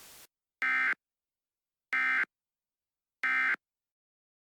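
Emergency Alert System end-of-message tones: three short, identical buzzy bursts of SAME digital data, about a second apart, marking the end of the alert.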